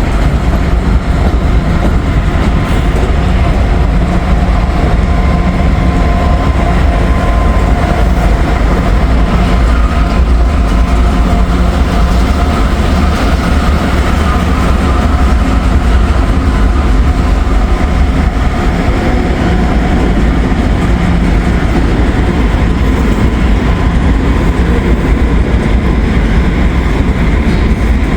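Norfolk Southern freight train moving past at close range in yard switching, a steady loud rumble of wheels on rail with faint steady tones above it.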